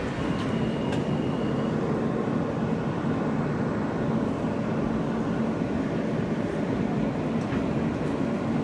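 New York City subway Q train running, heard from inside the car as a steady rumble.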